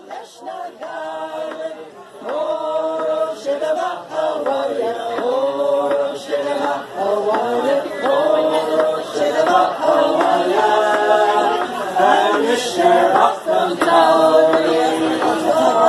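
A group of voices singing together without instruments, choir-style, fading in at the start and getting louder as it goes.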